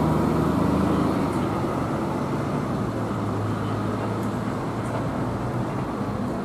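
A bus's diesel engine running steadily with a low hum, a little louder in the first second.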